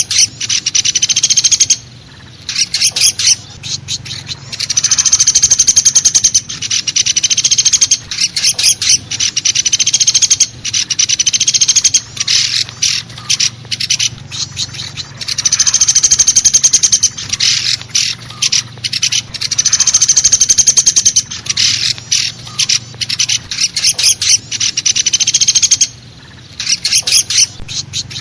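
Woodpecker lure recording: fast rattling trills of sharp, high notes in repeated bouts of a few seconds, with brief pauses between them.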